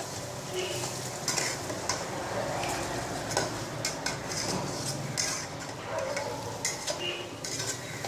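A steel spatula stirring and scraping against the sides of an aluminium handi pot, with irregular clinks and scrapes, while chicken masala with potatoes sizzles in the pot.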